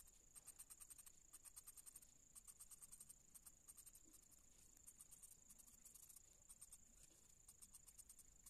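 Pencil shading on paper: runs of rapid, faint scratchy back-and-forth strokes with brief pauses between them.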